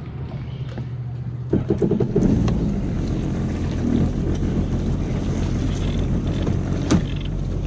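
Sea-Doo FishPro personal watercraft engine running, picking up about a second and a half in as the craft is backed out of shallow water, with a sharp click near the end.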